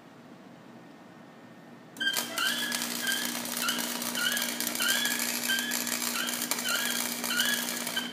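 Electric arc welding: the arc strikes abruptly about two seconds in and crackles steadily until the end, over a steady hum, with a short rising chirp repeating about twice a second.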